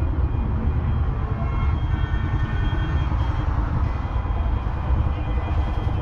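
1979 Deutz D6806's 3.8-litre air-cooled four-cylinder diesel engine running steadily.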